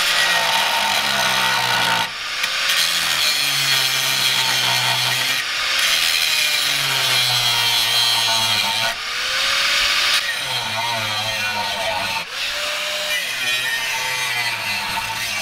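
A handheld power tool run in repeated bursts of about three seconds, each starting with a rising whine as the motor spins up, with brief pauses between them.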